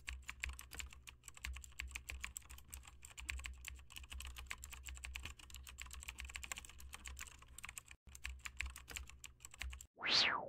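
Rapid keyboard-typing clicks, dense and irregular, over a low steady hum, broken by a brief gap about eight seconds in. Near the end a single loud whoosh sweeps down in pitch and fades.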